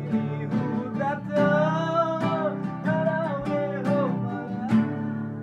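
Music: a strummed acoustic guitar with a wavering sung melody over it.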